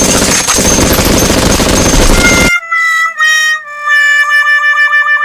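A loud rapid crackling like machine-gun fire cuts off abruptly about halfway through, followed by a 'fail' jingle on a reedy, harmonica-like wind instrument: three falling notes, the last one held long with a wobbling vibrato, like a sad-trombone 'wah wah wahhh'.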